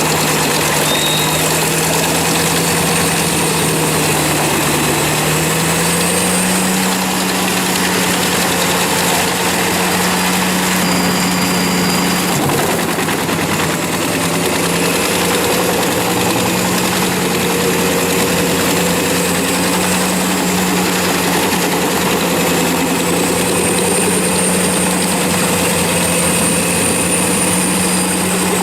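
Heavy machine engine running steadily, its pitch stepping up slightly about five seconds in and then holding.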